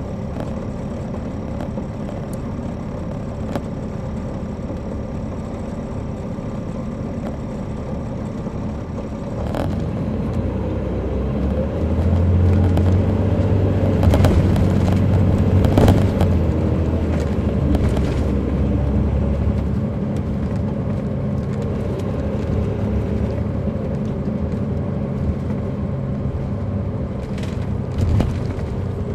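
Caterpillar C13 diesel engine of an MCI D4500CL coach heard from on board. It idles evenly at first, then about ten seconds in it pulls away, growing louder under load for several seconds before easing into steadier running.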